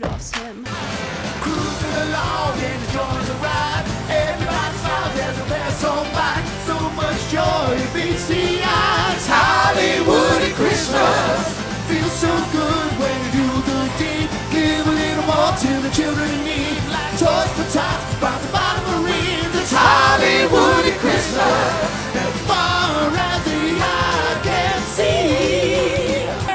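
Upbeat pop-rock song with singing over a steady driving beat.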